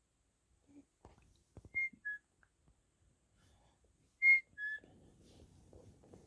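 A two-note whistle, a short high note dropping to a lower one, given twice about two and a half seconds apart, the second time louder.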